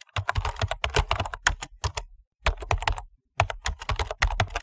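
Computer keyboard typing: rapid key clicks in three runs, separated by two brief pauses.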